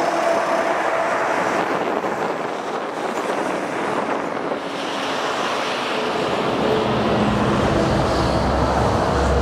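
Steady highway traffic noise with wind rushing on the microphone.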